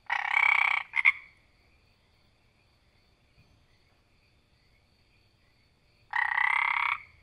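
Frog croaking: a long call of under a second, a quick double note right after it, then a pause of about five seconds and a second long call near the end. A faint steady high-pitched hum sits underneath between the calls.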